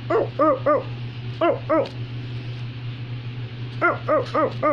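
Short, high yapping barks in quick runs: three, then two, then a run of five near the end, each one rising and falling in pitch. A steady low hum runs underneath.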